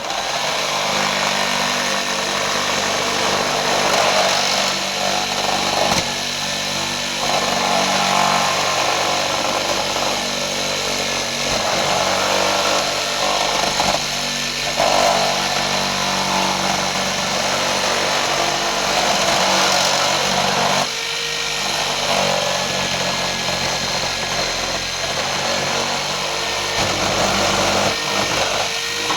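Handheld electric power saw running almost without a break as it cuts through the house wall, its load rising and dipping as the blade works. It cuts off right at the end.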